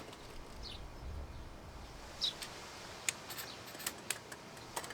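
Faint light clicks of pellet-loaded dummy cartridges being handled and slid into a Bara 1866 lever-action air rifle, several in the second half. A couple of short faint bird chirps.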